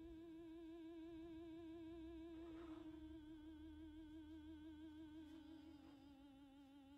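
Faint eerie background music: a single held, wavering tone with steady vibrato, dropping slightly in pitch about five seconds in.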